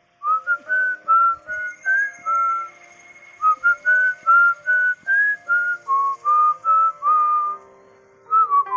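A person whistling a song melody in short clear notes over an instrumental backing track, in two phrases with a brief pause about three seconds in.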